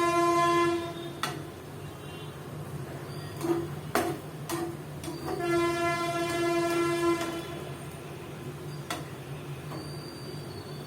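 A horn sounds two long, steady blasts, the first about a second long at the start and the second about two seconds long from about five seconds in, over a steady low hum, with a few sharp clicks in between.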